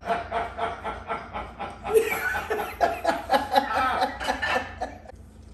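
A woman laughing: a run of quick, repeated chuckles that starts at once and dies away after about five seconds.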